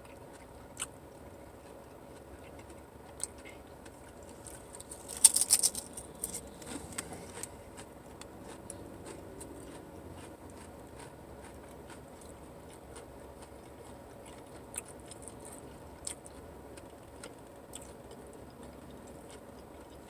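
Close-up eating sounds: chewing with scattered small clicks and crunches, and a louder burst of crackling about five seconds in.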